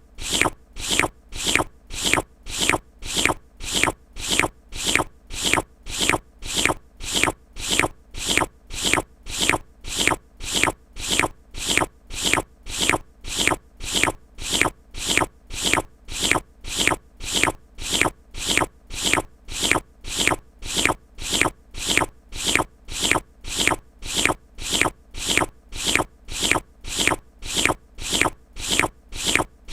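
A wet lip-licking mouth sound, amplified and looped, repeating evenly about one and a half times a second.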